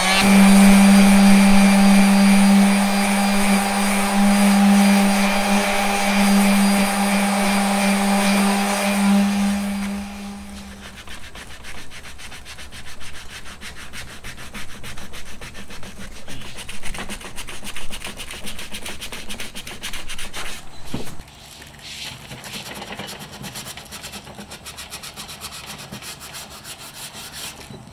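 Electric palm sander running steadily against a wooden recurve bow limb, stripping off the old clear-coat and glass finish; it stops after about ten seconds. After that comes quieter, uneven rubbing of hand sanding on the limb.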